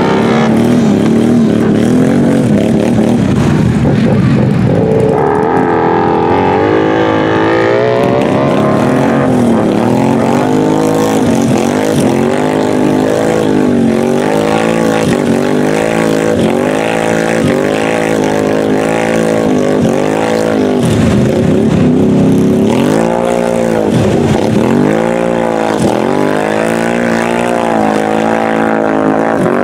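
Quad ATV engine under hard throttle in a mud pit. It runs at lower revs for the first few seconds, climbs, then revs up and down over and over, about once every second or so, as the tyres spin and churn through the mud.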